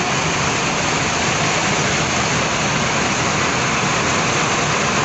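Steady rushing noise of bus and road traffic moving past, an even hiss with no horn and no change in loudness.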